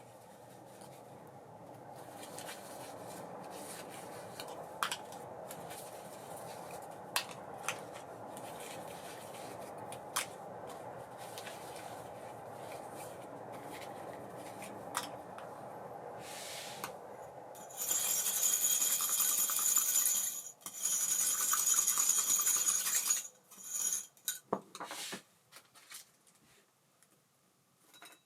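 Abu Garcia Ambassadeur 5500C baitcasting reel being worked: a steady whir of the turning mechanism with a few sharp clicks. About 18 seconds in it gives way to roughly five seconds of loud, high metallic clicking and rattling, then a few scattered clicks.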